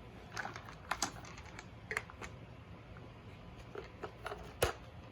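Plastic parts of a Bissell Featherweight stick vacuum being handled: a scattered series of light clicks and knocks, the loudest about four and a half seconds in.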